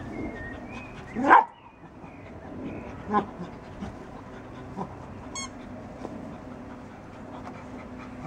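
Cocker spaniel whining: one loud rising whine about a second in, then a couple of shorter, quieter whimpers.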